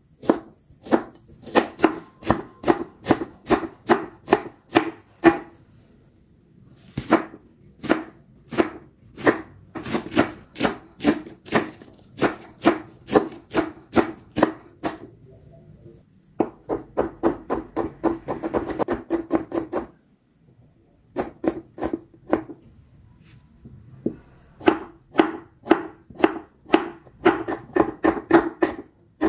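Kitchen knife slicing leeks and shallots on a wooden cutting board: runs of quick, even chops about three a second, with short pauses between runs.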